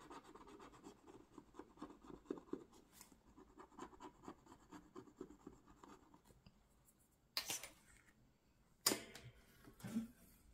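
Quick scratching strokes of a pen or scratching tool on paper, working over a field on a printed savings sheet for about six seconds. In the second half there are three short, louder handling sounds.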